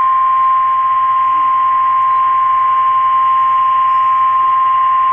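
Emergency alert attention tone: a single steady, loud 1050 Hz tone of the kind NOAA Weather Radio sends before a warning message, here ahead of a tornado warning.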